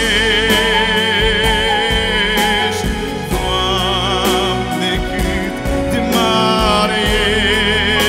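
A man sings a slow Christian worship song solo, holding long notes with wide vibrato, over electronic keyboard accompaniment. One phrase ends about three seconds in and the next begins.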